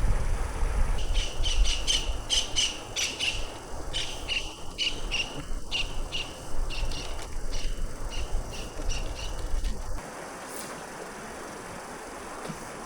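A bird calling a run of short, sharp repeated chirps, about two to three a second, over a steady low rumble and the hiss of flowing river water. The calls and the rumble stop abruptly about ten seconds in, leaving only the water's hiss.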